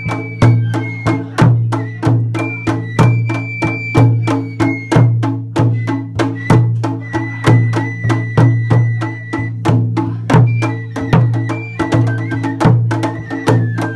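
A large taiko drum on a festival float, beaten in a steady rhythm about twice a second. Each stroke rings deep, with sharper clicks between the strokes and a high melody line coming and going above the beat.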